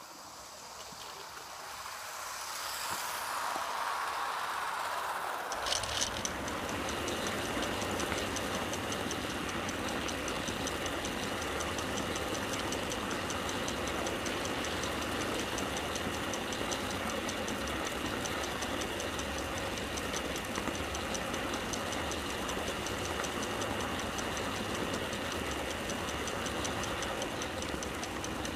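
Garden-railway model train running along its track, heard from a camera riding on board: a steady mechanical rumble of wheels on rail and drive, with a steady high whine and faint regular clicks. It sets in about five and a half seconds in, after a hiss that builds over the first few seconds.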